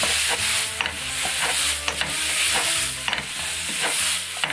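A stainless ladle stirring and scraping pork belly and kimchi in a sauce of syrup, chili powder and soy sauce around a frying pan, with the food sizzling as it fries. Repeated short knocks and scrapes of the ladle against the pan.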